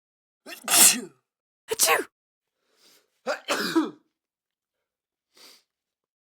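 Three sneezes, one after another about a second and a half apart, each a short voiced burst with falling pitch, then a faint short one near the end.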